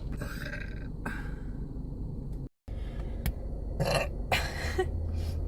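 A woman burping; the sound drops out to silence for a moment about two and a half seconds in.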